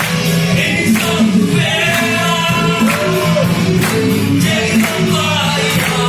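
Live rock band playing: a male lead vocal sings over electric guitar, keyboard and drums, with a steady beat.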